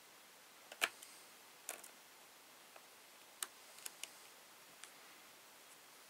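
Small screwdriver driving tiny screws into a drive-adapter case, with faint scattered clicks and ticks of the tool against the screws and case. The sharpest click comes about a second in, and a few more come close together near the middle.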